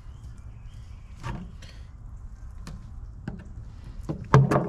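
Knife cutting and knocking on a cutting board while filleting fish: a few scattered clicks and knocks, the loudest near the end, over a steady low hum.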